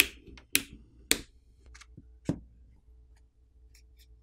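Plastic catches of a smartphone's plastic back housing snapping loose one after another as a plastic pry pick is run along the frame's edge: four sharp clicks in the first two and a half seconds, then only faint ticks.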